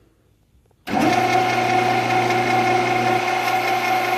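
Grizzly G0602 10x22 metal lathe switched on about a second in, coming straight up to speed and then running steadily with a whine of several steady tones from the motor and spindle drive.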